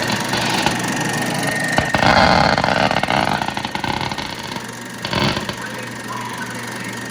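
Vintage RCA 16mm movie projector running: a steady mechanical clatter with a hum and a high whine. It swells louder about two seconds in, and there is a short burst about five seconds in.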